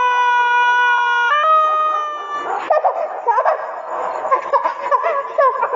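A long, high-pitched howling wail, held at a steady pitch and stepping up a little about a second in, breaks off about halfway through into a jumble of many short shrill yelping cries; it is presented as the cry of a kuntilanak ghost.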